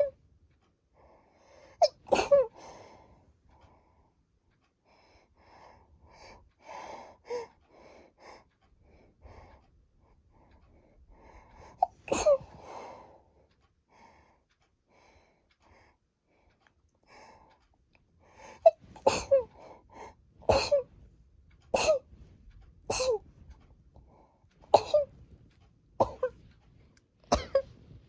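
A person sneezing again and again: single sneezes about two seconds in and near the middle, then a quick run of about eight sneezes in the last ten seconds. Quieter breaths come in between.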